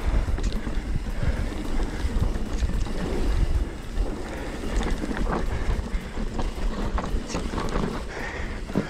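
Wind rushing over the microphone of a mountain bike descending a trail at speed, with rumbling tyre noise and frequent short clicks and knocks from the bike rattling over rough ground.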